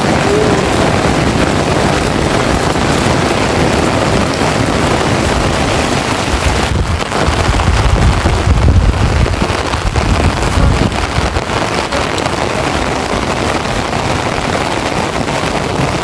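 Heavy rain falling hard and steadily. Strong wind gusts buffet the microphone with a low rumble around the middle.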